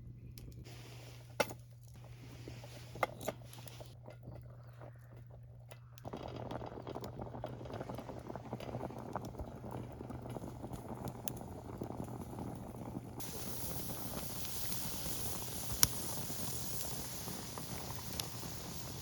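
A pot of rice boiling over a wood fire, with occasional crackles and pops from the burning wood. The bubbling starts suddenly about six seconds in, and a steady hiss of steam joins about halfway through.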